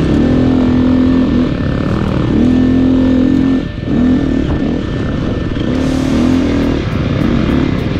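2017 KTM 350XC-F's single-cylinder four-stroke engine revving hard under race load, its pitch climbing and falling back several times as the rider works the throttle and gears, with a brief throttle-off about three and a half seconds in. Light ticks come in near the end.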